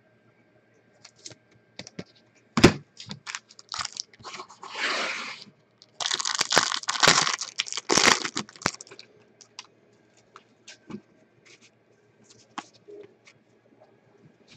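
Trading card packaging being torn open and crinkled, a short tear about four seconds in, then a few seconds of dense crackling, among light clicks of cards being handled.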